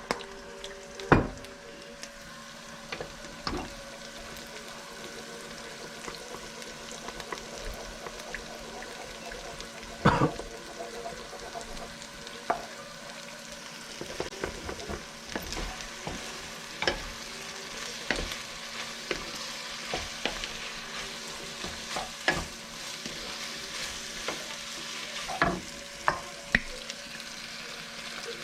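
Food sizzling in a hot frying pan as it is stir-fried for fried rice, with a spatula knocking and scraping against the pan every second or two. A faint steady hum runs underneath.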